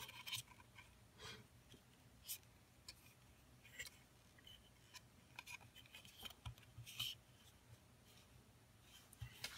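Faint, scattered taps and rubs of a clear plastic tray and cardboard packaging insert being handled, a few soft clicks a second or so apart over near silence.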